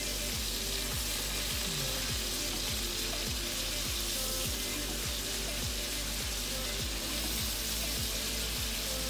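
Pork chops sizzling in oil in a frying pan, with background music carrying a steady beat of about two thumps a second.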